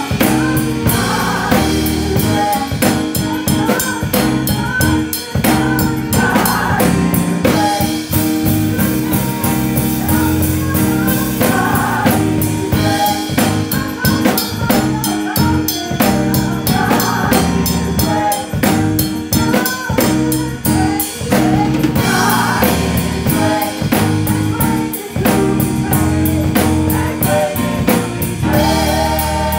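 Live gospel praise music: women's voices singing over electronic keyboard, with a steady drum-kit beat.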